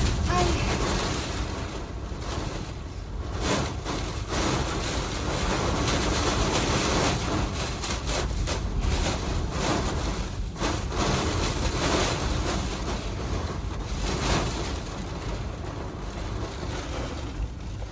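Hurricane eyewall winds blowing hard and steadily, with gusts that swell and ease every few seconds.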